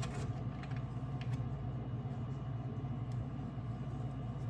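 Steady low hum, like a running kitchen appliance or motor, with a few faint light clicks and taps over it.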